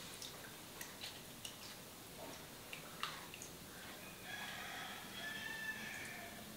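Faint clicks and scratches of an ear-cleaning tool working at the ear. About four seconds in, a drawn-out call of about two seconds sounds in the background, louder than the clicks.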